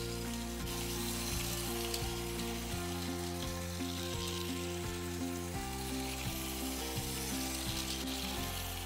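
A battery-powered Plarail toy train running along plastic track, giving a continuous whirring, rattling hiss from its motor and wheels. Background music plays alongside, with sustained notes that change every half second or so.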